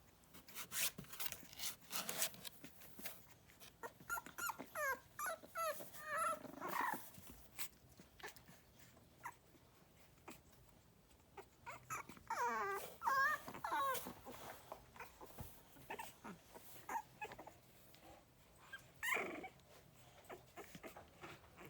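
Young Boston terrier puppies whining and squeaking in several bouts of wavering high-pitched calls, with short clicks and rustles between them.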